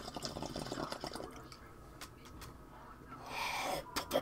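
A person smoking close to the microphone: faint crackling and ticking, then a short breath out a little over three seconds in.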